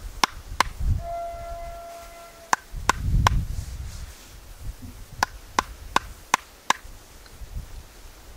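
Wooden mallet knocking on a tool set into the top of a log to split it: sharp knocks in short runs, two near the start, a few around three seconds in, then five evenly spaced strokes between about five and seven seconds.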